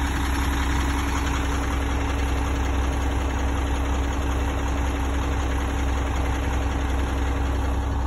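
Concrete mixer truck's diesel engine idling steadily, a low, even drone with a constant hum.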